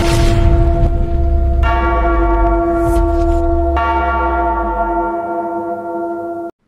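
Intro sound effect of a deep bell-like tone, struck twice and ringing on after each strike over a low rumble, then cut off abruptly near the end.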